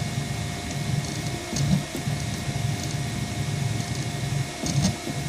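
Home-built delta 3D printer printing: its stepper motors whine in short moves whose pitch changes every fraction of a second, over the steady hum of a cooling fan.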